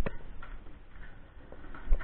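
Footsteps on a hard indoor floor: a sharp step click at the start and a duller thump near the end, with low rumble from the moving body-worn camera.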